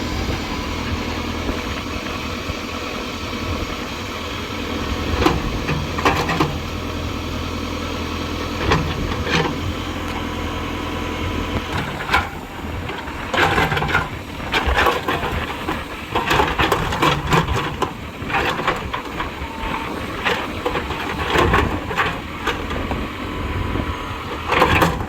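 Tractor cutting a road, its diesel engine running steadily under load, with repeated knocks and scraping of earth and rock.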